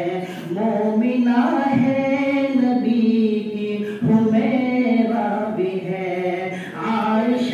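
A man singing a naat, an Urdu devotional poem in praise of the Prophet, unaccompanied, in long drawn-out phrases of held notes, with a short pause for breath about four seconds in.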